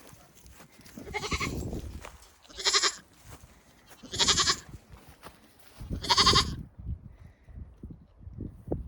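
Goats bleating: four short, quavering bleats about a second and a half apart.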